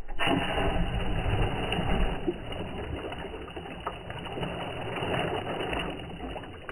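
Boat's outboard motor running steadily, starting and stopping abruptly.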